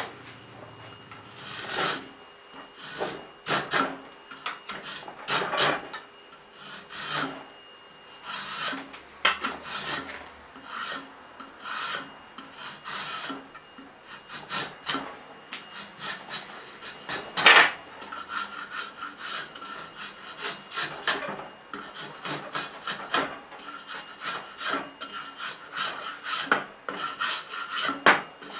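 Flat hand file scraping along an ash hammer handle clamped in a vise, shaping the wood in repeated strokes. The strokes come about once a second at first and get quicker and shorter in the second half.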